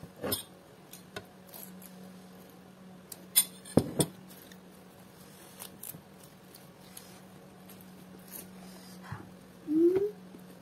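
Small clicks and taps of fingers picking rice and vegetables off a plate during eating by hand, over a faint steady hum. Near the end comes a short rising sigh from the heat of spicy food.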